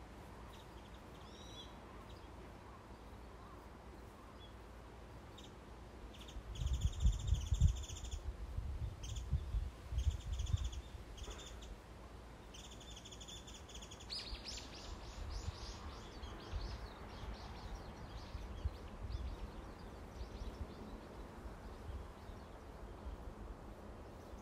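Birds calling in a garden: bursts of quick, shrill chirps about six seconds in, repeating on and off for several seconds, then a fast falling run of calls. A low rumble sits under the loudest calls, over a steady outdoor background hum.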